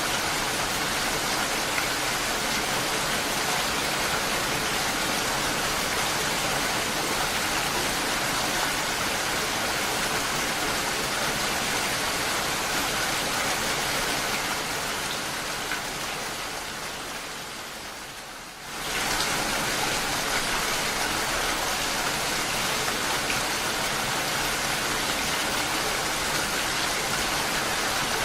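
Steady rain. About halfway through it fades down over a few seconds, then cuts back in suddenly at full level.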